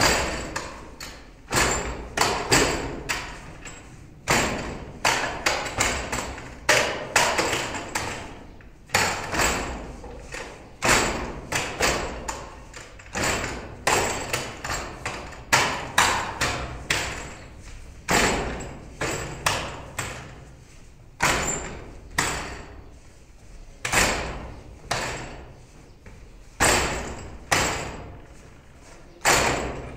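Wing Chun wooden dummy (mook yan jong) being struck: hands and forearms knock against its wooden arms and trunk in quick, irregular runs of sharp knocks, about two a second.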